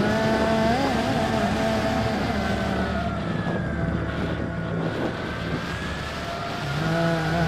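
Electric motor of a Bixler 3 RC plane whining steadily in flight, its pitch sinking slowly about halfway through and rising again.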